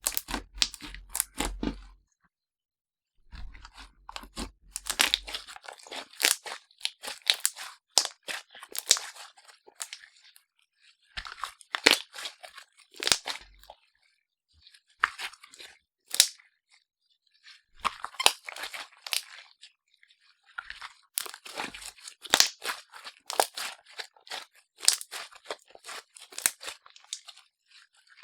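Slime being kneaded and stretched by hand, giving dense sticky clicks, pops and crackles in bursts of a few seconds, cut off abruptly by several short silent gaps.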